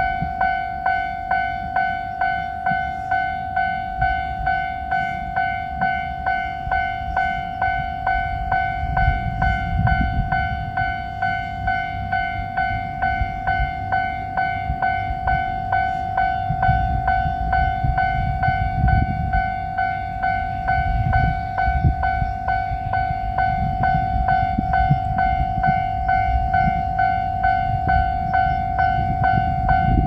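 Japanese level crossing warning bell ringing its steady electronic "kan-kan" at about two strokes a second, signalling that a train is approaching. A low rumble swells and fades beneath it.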